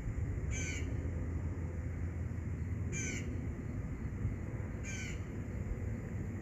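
A bird calling three times, about two seconds apart, with short harsh calls, over a steady low rumble.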